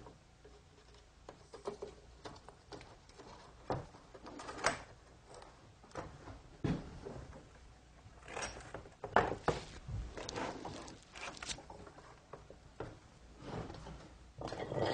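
Scattered clicks, knocks and short scrapes from a sectional brass metal picture frame as its last side is slid on and fitted by hand against a wooden workbench.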